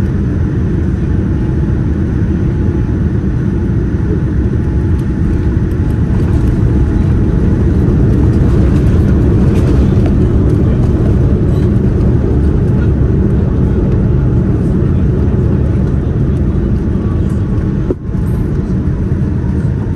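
Loud, steady low rumble inside the cabin of a Boeing 787-10 during landing. It swells over the first several seconds, holds steady, and dips briefly about two seconds before the end.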